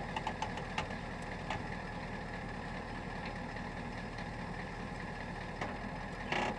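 Ford tow truck's engine idling steadily while the wheel-lift controls are worked, with a steady high whine over the rumble. A short rush of noise comes near the end.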